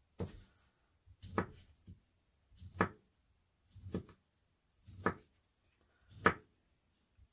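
Kitchen knife slicing a peeled, cooked sweet potato into rounds, the blade knocking through onto a paper napkin over a stone countertop. There are six even cuts about a second apart.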